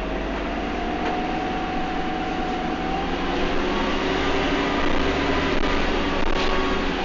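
Bus engine and transmission heard from inside the bus while it drives, with a whine that climbs slowly in pitch as the bus picks up speed and grows louder in the second half.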